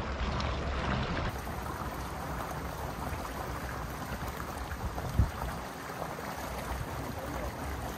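Steady outdoor background noise, an even hiss over a low rumble, with a single sharp knock about five seconds in.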